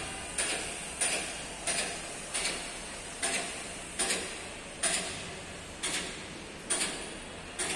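Sharp knocks repeating at an uneven pace, roughly once a second, each with a short after-knock.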